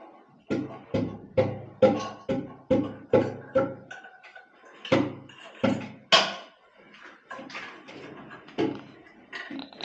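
Hammer blows: a steady run of about eight strikes, a little over two a second, then a few more after a short pause, with lighter taps near the end.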